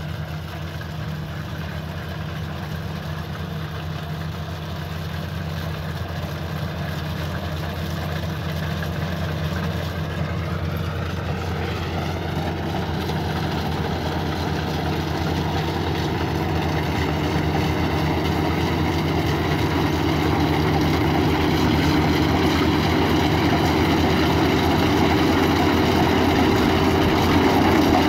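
Bina Pertiwi compact rice combine harvester running steadily while cutting ripe rice, its engine and machinery getting louder as it comes closer.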